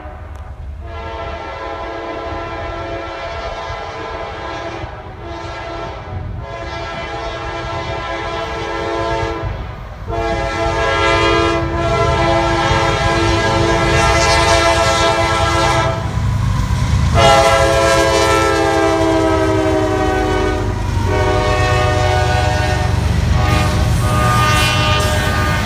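A CSX freight locomotive's air horn sounds its chord in a series of long blasts with short breaks, the warning for the grade crossing. Beneath it the low rumble of the approaching train grows louder.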